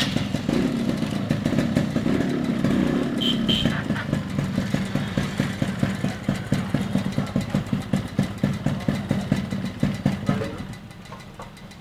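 Yamaha RX100's two-stroke single-cylinder engine running just after starting. It revs for the first few seconds, then settles into an uneven, pulsing idle and stops near the end.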